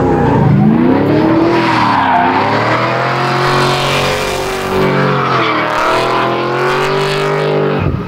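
Drift car's engine revving hard, its note swinging down and back up several times, with tyres squealing and skidding through the slide. The sound cuts off just before the end.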